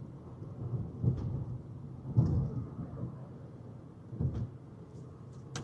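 Low, steady rumble of a vehicle on the move, heard from inside, with a few dull thumps about one, two and four seconds in.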